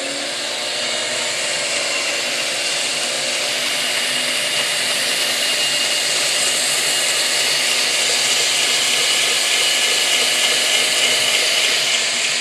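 Homemade 2x72 belt grinder, driven by a treadmill motor, running at low speed with the abrasive belt spinning. It makes a steady whirring hiss with a thin high whine, getting a little louder over the first couple of seconds and then holding steady.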